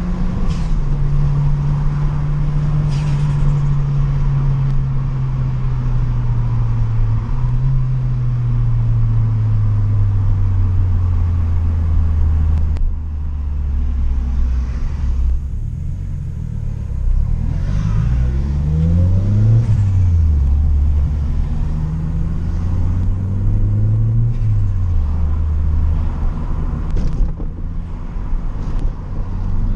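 Turbocharged Toyota Corolla 4E-FE 1.3-litre four-cylinder engine with a CT20 turbo and 2.5-inch exhaust, running while the car drives. The engine note falls slowly over the first half, then the revs climb and drop sharply a little past the middle, and rise and fall once more later.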